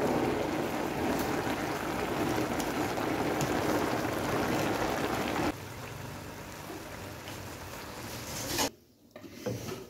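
Steady sizzling and bubbling from a large aluminium pot of chicken pulao cooking, the liquid cooking off as the rice is turned over with a spatula. The sound drops in level about five and a half seconds in and cuts off abruptly near the end.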